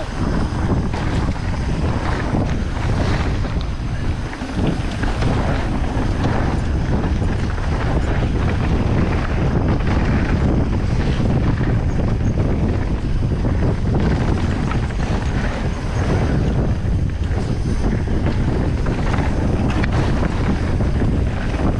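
Wind rushing over the microphone as a mountain bike rides fast downhill, with continual knocks and rattles from the bike going over the rough trail.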